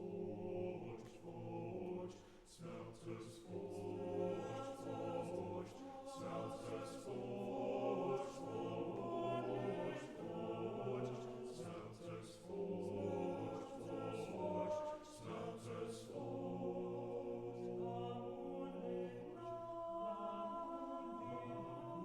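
Tenor-bass men's chorus singing in several-part harmony, with long held chords.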